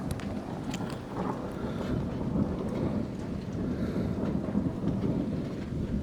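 Thunder rumbling continuously from a thunderstorm, a low rolling rumble that swells and fades without a break, with a few faint clicks about a second in.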